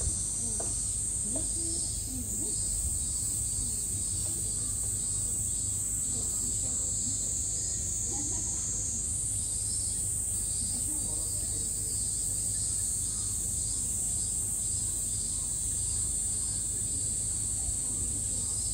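Cicadas buzzing in a steady, high-pitched summer chorus, with faint voices of people in the background.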